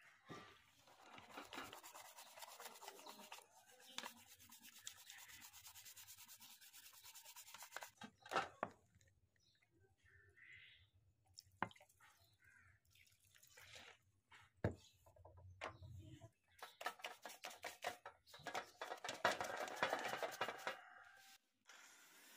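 Scrubbing and scraping on a mini split outdoor control board as rust is cleaned off its pins with petrol. The rubbing comes in irregular bursts, with a few sharp clicks between them.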